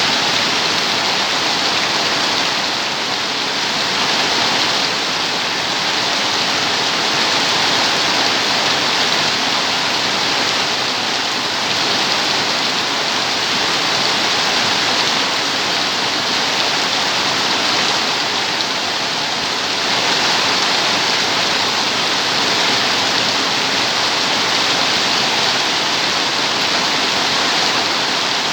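Steady heavy rain, a dense even hiss with slight swells in loudness and no separate drops or thunder.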